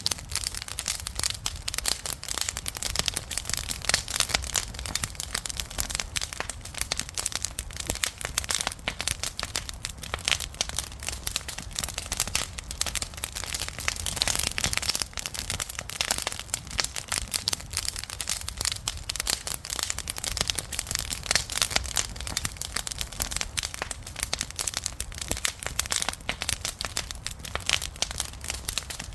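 Wood fire crackling, with a dense, irregular run of sharp pops and snaps over a low rumble of burning.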